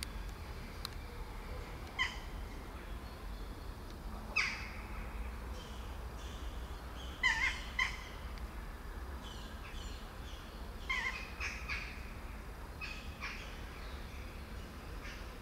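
Kittens mewing: a series of short, high-pitched mews a second or two apart, some in quick pairs.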